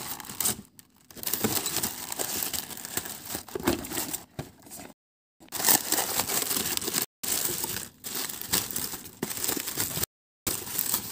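Honeycomb kraft paper packing wrap being crumpled and handled while unpacking a parcel: irregular rustling and crinkling in spurts, broken by three short, abrupt silent gaps.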